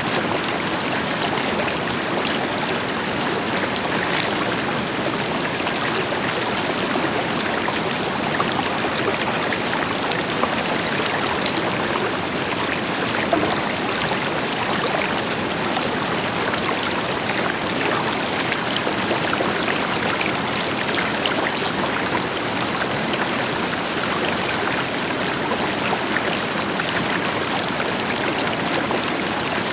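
River water flowing and splashing over rocks, a steady, even rush with small splashes throughout, with a distant waterfall adding a deeper hiss beneath.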